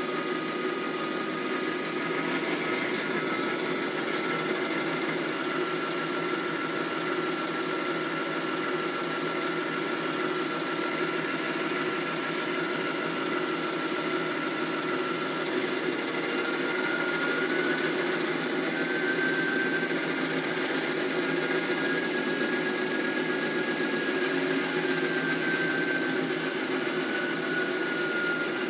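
Sampled GE diesel locomotive engine sound from a Kato Sound Box with an ES44 sound card, played through its speaker and running steadily. The engine pitch steps up a little about halfway through and falls back near the end.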